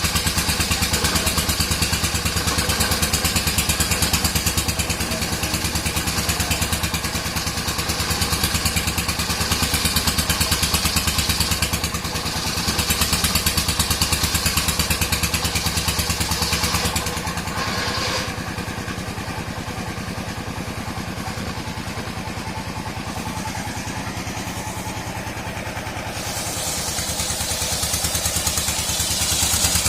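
Engine-driven sawmill running, its engine firing in rapid even pulses. It is loud with a bright high edge for the first half, eases and dulls about two-thirds of the way in, then builds up again near the end.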